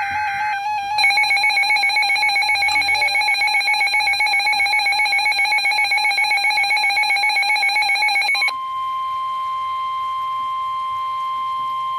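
Emergency Alert System tones for a severe thunderstorm warning. The tail of a SAME header data burst, a short digital screech, ends about half a second in. A fast-pulsing electronic alert tone follows for about seven and a half seconds, and then the NOAA Weather Radio warning alarm tone, one steady high tone.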